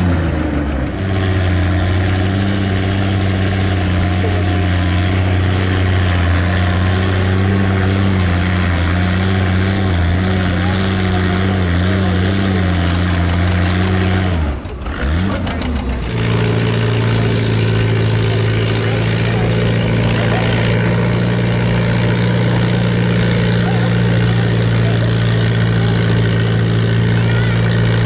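Antique tractor engine running at a steady pitch. About halfway through it briefly drops away, then comes back at a slightly higher pitch.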